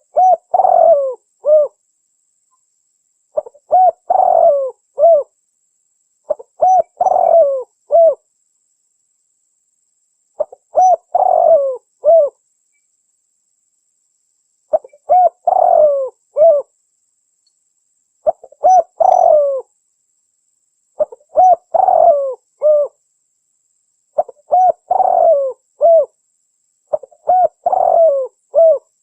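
Spotted dove (tekukur) cooing in repeated phrases of three or four short coos, nine phrases about every three to four seconds. By the uploader's account it is a female's call, used as a lure to draw males.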